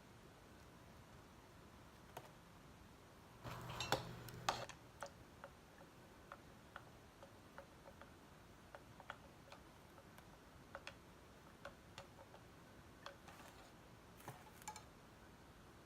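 Scattered light clicks and taps in a quiet small room, with a short burst of louder clatter about four seconds in and another, smaller one near the end.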